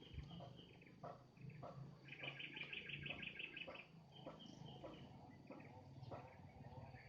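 A bird calling faintly: a rapid trill of about ten notes a second lasting nearly two seconds, with shorter high calls before and after it.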